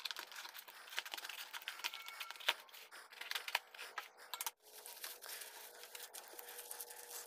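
Faint crinkling, rustling and scattered small clicks of a taped cardboard parcel being handled and torn open by hand.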